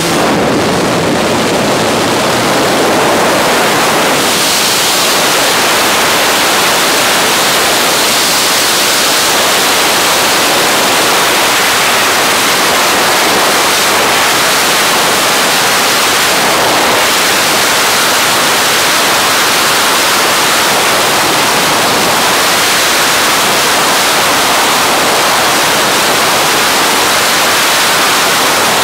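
Loud, steady rush of freefall wind blasting across the camera microphone during a tandem skydive.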